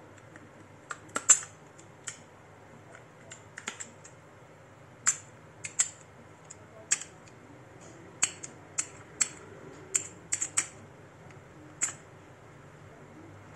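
Irregular light clicks and taps, about twenty spaced unevenly, the loudest a little over a second in, from small hard plastic and metal parts being handled, over a faint steady hum.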